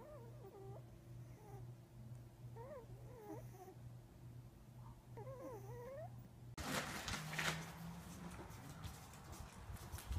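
Sleeping French bulldog puppies whimpering softly in three short spells of wavering squeaks over a low steady hum. About six and a half seconds in, this gives way to outdoor noise with light clicks of dogs' paws on paving stones.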